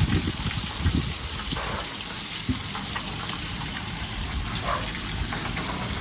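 Fish frying in hot oil in a pot, a steady sizzle, with a few low knocks in the first second.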